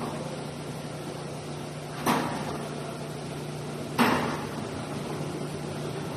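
Two sharp metallic clanks about two seconds apart, each with a short ringing tail, from steel pallet-rack parts being knocked or set into place during assembly. The second clank is the louder. A steady low hum runs underneath.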